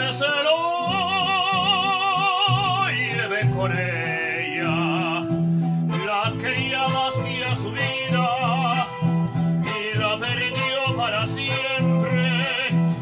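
A man singing a ranchera in Spanish, holding long notes with a wide vibrato, over a backing track with guitar and a stepping bass line.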